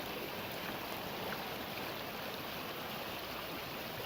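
Mountain creek water running, a steady even rush.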